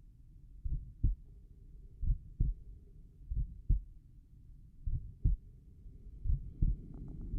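Human heart sounds heard over the tricuspid area at a slow, relaxed resting rate of about 43 beats a minute. There are five lub-dub beats, each a pair of low thumps about a third of a second apart. A scratchy rubbing noise rises near the end.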